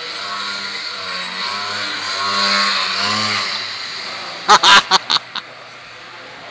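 Small electric motor and propeller of an indoor RC foam aerobatic plane buzzing, its pitch rising and falling with the throttle. About four and a half seconds in come four or five sharp, loud knocks, after which only a quieter steady hum is left.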